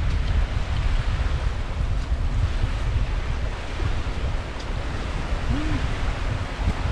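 Strong wind buffeting the microphone with an uneven low rumble, over the steady wash of sea surf breaking on a rocky shore.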